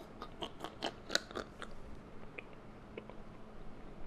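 Faint, irregular short clicks and snuffles of a man stifling laughter behind his hand. They come thickest in the first second and a half, then thin out.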